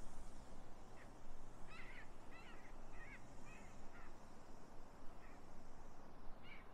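Ducks quacking: a run of short calls starting about a second in, most of them bunched together, then one more near the end, over a steady low background noise.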